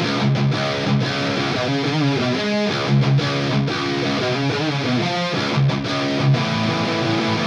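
High-gain distorted electric guitar playing a heavy rock rhythm part, with brief stops between chords. It is an ESP LTD Iron Cross with EMG Het Set pickups, through Helix Native's Cali Rectifire amp model (based on a Mesa Boogie Rectifier) and a 4x12 Recto cab impulse response.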